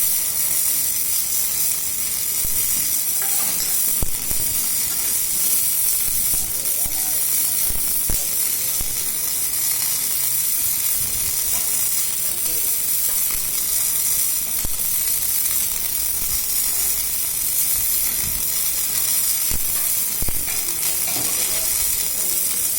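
Electric arc welding: a steady crackling sizzle from the arc, with a few short knocks here and there.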